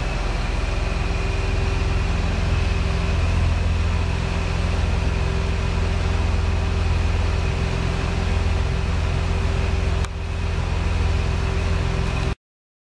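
Porsche 911 Carrera S flat-six engine idling steadily, with a low even drone. The sound cuts off abruptly near the end.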